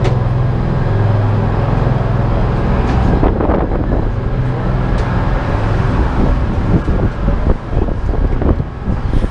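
A charter fishing boat's engines droning steadily, heard from inside the cabin, with a low hum throughout. From about three seconds in there are scattered knocks and rustles of the camera being handled.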